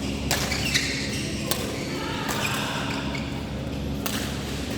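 Badminton rackets striking a shuttlecock in a rally: several sharp hits a fraction of a second to a few seconds apart, over a steady low hum.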